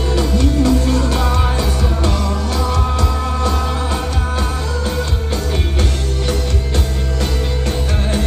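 Rock band playing live through a festival PA: a lead vocal sung over electric guitar and drums, with a strong steady low end.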